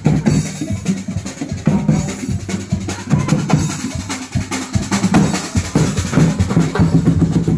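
Street drum corps of snare and bass drums playing a loud, rapid marching beat, the strikes coming thick and fast.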